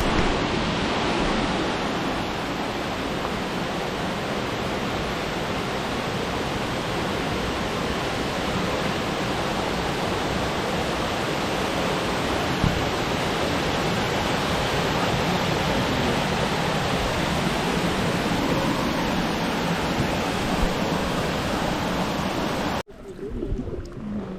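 Waterfall, a steady rush of falling water that cuts off suddenly near the end.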